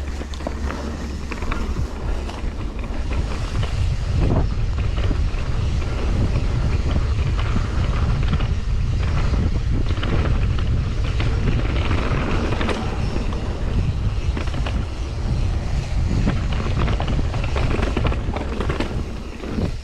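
Wind buffeting a helmet or body-mounted camera's microphone during a mountain bike ride, a loud low rumble, with many short knocks and rattles from the bike running over rough trail.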